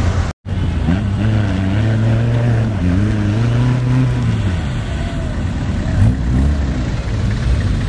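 Small off-road 4x4's engine revving up and down in repeated surges while its wheels spin and churn through deep mud.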